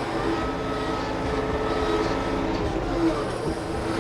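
Small tractor's engine running steadily while the loader works.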